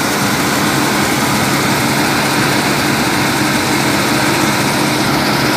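New Holland 8070 combine harvester running steadily under load as it cuts standing crop. The engine hum is mixed with the noise of the header and threshing machinery.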